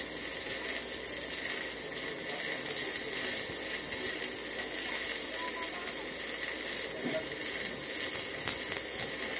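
Electric arc of a stick (manual metal-arc) welder burning steadily against sheet metal as a weld is laid.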